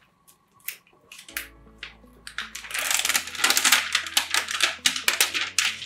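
Clear plastic packaging crinkling in quick, repeated rustles as the resin tank's silicone seals are handled, densest in the second half. Soft background music comes in about a second in.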